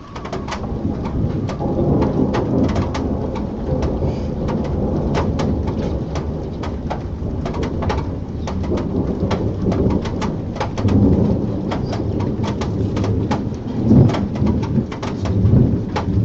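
Thunderstorm downpour: heavy rain with drops striking a nearby surface as sharp taps, over a low rumble of thunder that swells about two-thirds of the way in and again near the end.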